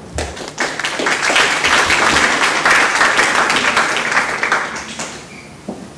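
Audience applauding, rising over the first second and dying away about five seconds in.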